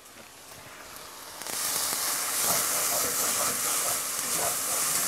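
Cooked rice sizzling in a hot cast iron pan as it is stirred with a spatula. The sizzle grows loud about a second and a half in, when the rice is turned over the hot metal, and stays a steady hiss.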